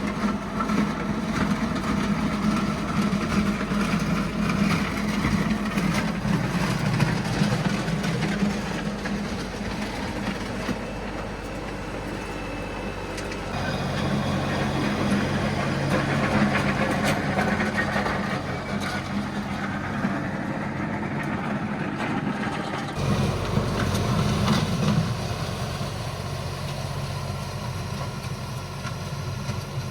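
LS MT357 tractor's diesel engine running under load while grading a gravel driveway, its pitch shifting twice, about halfway through and again about two-thirds of the way in.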